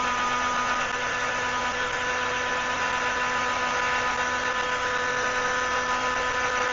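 Handheld dryer running steadily with a motor whine and rush of air, drying freshly airbrushed paint on a lure; it switches off at the end.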